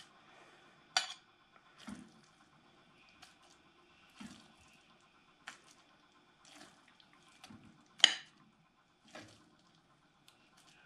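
A metal spoon scooping thick buckwheat porridge out of a pot onto a glazed plate: short clinks and scrapes of the spoon against the pot rim and the plate about once a second, with soft wet squelches of the porridge. The sharpest clink comes about eight seconds in.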